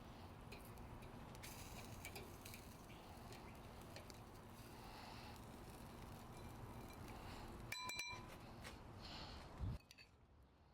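Faint room background with light clinks, and one short ringing clink about eight seconds in, as a utensil or plate is knocked while the food is plated. The background drops away suddenly near the end.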